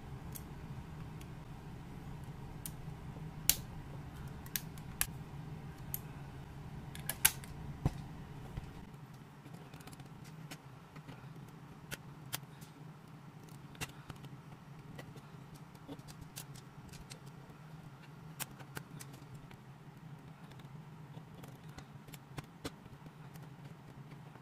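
Plastic building bricks clicking and snapping as they are pressed together and handled by hand: scattered sharp clicks, bunched in the first eight seconds and sparser after, over a steady low hum.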